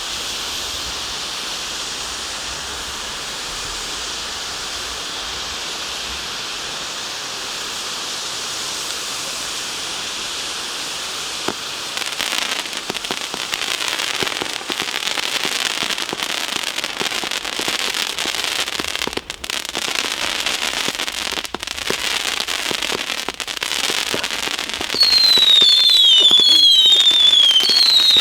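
Firework fountains spraying with a steady hiss. About halfway through, a new firework takes over with dense crackling, and near the end a louder string of falling whistles repeats one after another.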